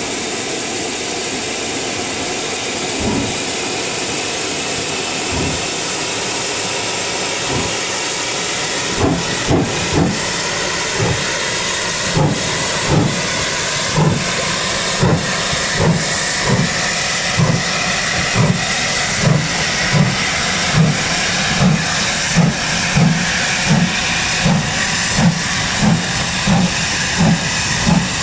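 Steam locomotive with a steady hiss of steam, then from about nine seconds in its exhaust beats start and quicken steadily as it gets under way.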